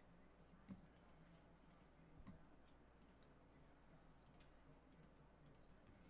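Near silence: faint room tone with a few scattered, faint clicks.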